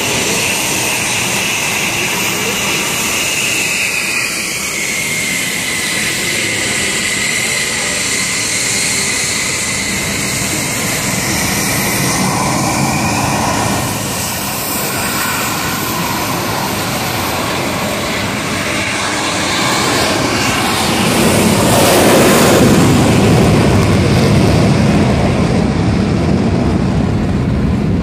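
Twin jet engines of taxiing F-15SG fighters running steadily. A high whine drops in pitch over the first several seconds. A louder, deeper rush of jet noise builds about twenty seconds in and eases slightly near the end.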